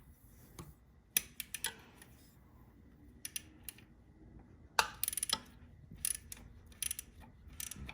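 Irregular metallic clicks and clinks of a hand wrench being fitted and worked on the front crankshaft pulley bolt of a BMW R1200 motorcycle, some in quick little runs like ratchet clicks.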